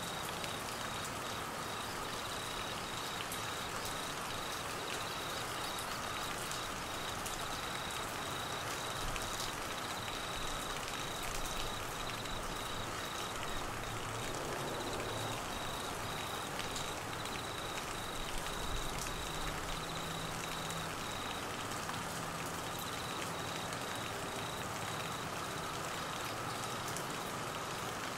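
Heavy rain falling steadily on trees and grass, with crickets chirping in a fast, even pulsing trill over it that breaks off for a moment about three quarters of the way through. A faint low rumble rises under the rain around the middle.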